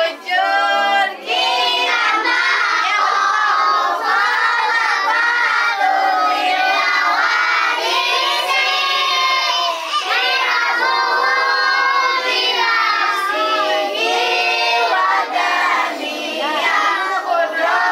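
A large group of children singing together.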